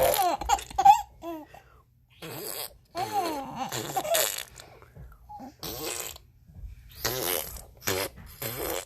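Repeated short fart sound effects, apparently from a phone, each a brief noisy burst, with a baby laughing and squealing in rising and falling peals between them, loudest around the start and from about three seconds in.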